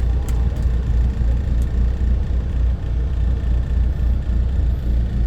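Steady low engine and road rumble of a moving tour vehicle, heard from inside the passenger cabin.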